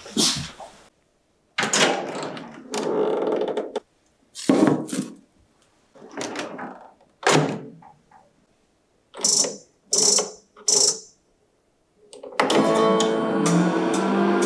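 A Balmuda microwave oven being loaded and set: knocks of the door and the container in the first several seconds, then three short electronic chimes as the settings are made. About 12 s in, a sustained musical chord rings out as the oven starts heating.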